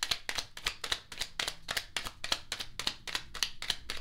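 A deck of tarot cards being shuffled by hand: a quick, even run of crisp card-on-card slaps, about six or seven a second.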